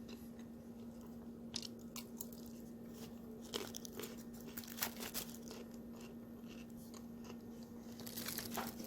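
Close-up chewing of crunchy salad — lettuce and cucumber — with scattered short crunches and mouth clicks, a denser run of crunching near the end.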